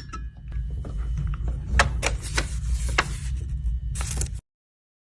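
Clicks and knocks from a steampunk puzzle box being handled, with four sharp ones in the middle, over a low steady rumble. The sound cuts off abruptly near the end.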